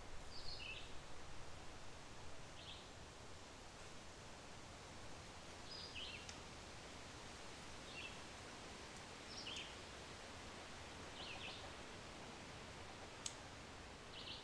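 A small songbird repeating a short, high two-part call that drops in pitch, every second or two, over the soft steady hiss of a flowing creek. One sharp click near the end.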